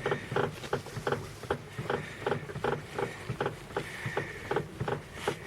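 VAZ-2111 front suspension creaking in short, regular clicks, about three a second, as the steering wheel is turned to the left. The noise is traced to somewhere near the tie-rod end; the strut support bearing is suspected.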